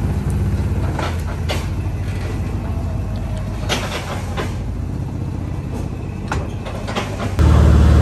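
Motor vehicle running with a steady low engine rumble and scattered knocks and rattles; the rumble gets louder about seven seconds in.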